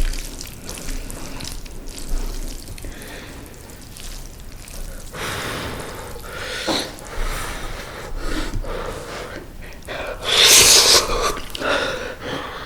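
A person slurping and chewing mala tang instant noodles close to the microphone, in irregular bursts with a long, loud slurp near the end.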